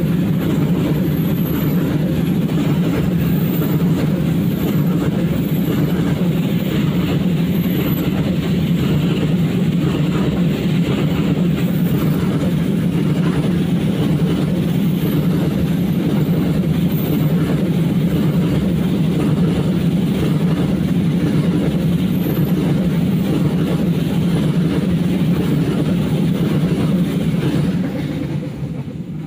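A long freight train of open-top wagons rolling past, with a steady rumble of steel wheels on the rails. The sound falls away near the end as the last wagon passes.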